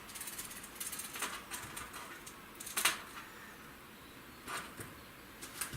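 Hand work with small tools: scattered light clicks and a few short scratchy strokes, as of a tape measure and pencil being handled while measuring and marking.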